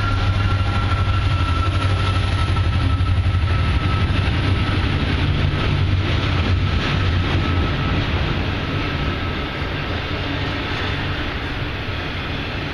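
Union Pacific train passing close by: a loud, steady rumble that eases off a little near the end.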